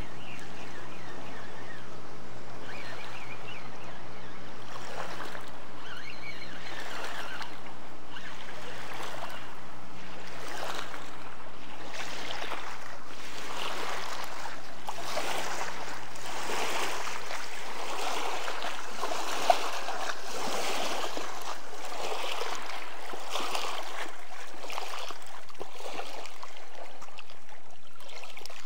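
River water rushing and lapping in uneven surges, over a steady low hum that cuts out a little over halfway through. A single sharp click comes a couple of seconds after the hum stops.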